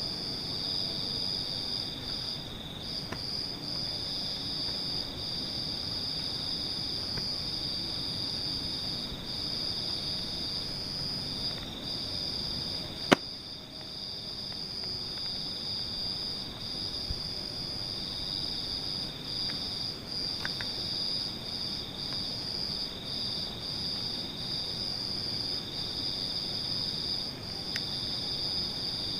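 Insects chirring in a steady high trill that drops out for brief moments, over a low background hiss, with one sharp click about thirteen seconds in.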